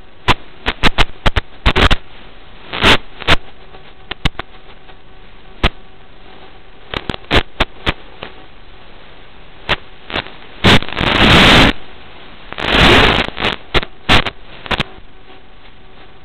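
Static hiss on the audio channel of an analog FPV video receiver, broken by sharp crackling pops throughout and two longer loud bursts of static about two-thirds of the way through.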